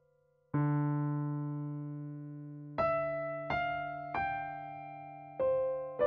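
Background piano music: a chord struck about half a second in and left to ring, then four single notes about a second apart, each fading.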